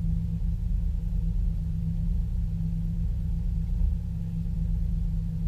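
An engine running steadily, a low rumble with a constant hum and no change in speed.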